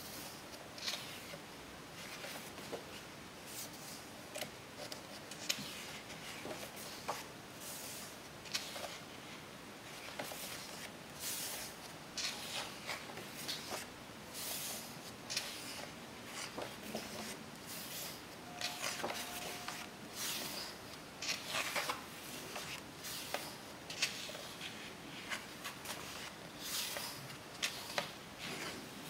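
Paper rustling as the pages of a large photo book are turned by hand, spread after spread: irregular short swishes of pages sliding and flipping, with fingers brushing across the paper.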